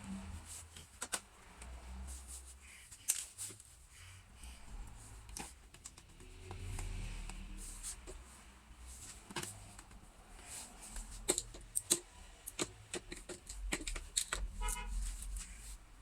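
Irregular small clicks and taps of a screwdriver and screws against a laptop's plastic bottom case as the case screws are driven back in, with a short quick run of ticks near the end.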